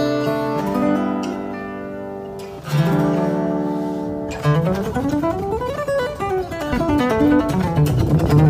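Background music on acoustic guitar: strummed chords ring on, then from about halfway a quick run of plucked notes climbs and falls.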